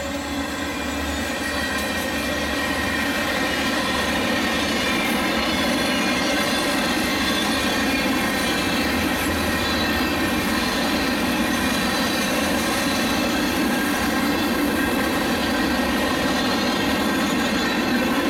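Florida East Coast Railway freight train's gondola cars rolling past, a steady, continuous noise of steel wheels on rail that holds level throughout.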